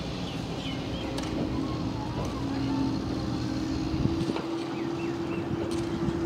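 An engine droning steadily at one pitch, the pitch creeping up a little a few seconds in.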